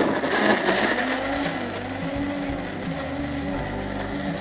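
Cuisinart blender on its Ice Crush setting, the blades crushing ice in lemonade. There is a loud burst of ice clatter in the first second, then the motor runs steadily as the drink turns to frappé.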